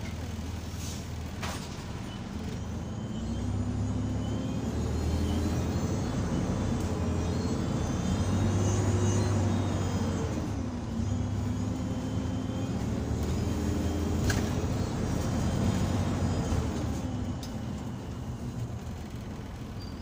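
Optare Solo SR bus engine heard from inside the saloon, pulling hard under acceleration with a whining, hoover-like note over it. The engine note climbs, dips about ten seconds in, climbs again and eases off near the end. Sharp clicks come about a second and a half in and about fourteen seconds in.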